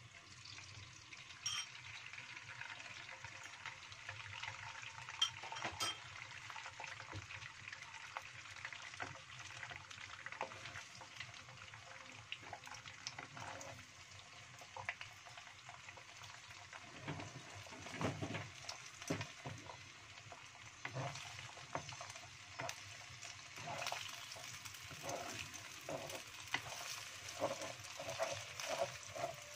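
Beaten egg hitting hot oil in a non-stick wok and sizzling as it fries. About halfway through, a wooden spatula starts scraping and knocking against the pan as the egg is pushed and broken up, the strokes coming more often near the end.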